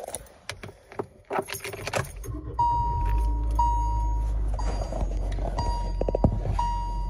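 Car keys jangling as they are handled, then the car's engine starts about two and a half seconds in and runs with a steady low hum. A dashboard warning chime dings about once a second over it.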